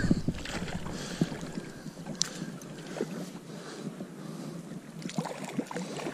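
Wind and water noise, with scattered light clicks and taps.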